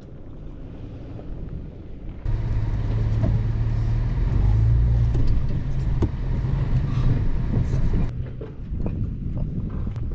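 2007 Toyota FJ Cruiser's 4.0-litre V6 running as the truck drives over dirt. It is faint at first, then abruptly much louder and fuller about two seconds in.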